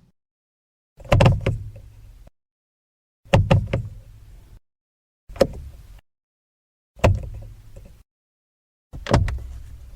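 Five separate car door and latch sounds, one after another with dead silence between them: each is a few sharp latch clicks with a low thunk, then a short fading rattle.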